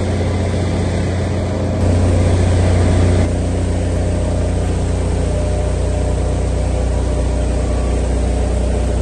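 Drilling rig machinery running with a steady low drone while the shale shakers vibrate and drilling mud pours across their screens. It briefly gets louder about two seconds in.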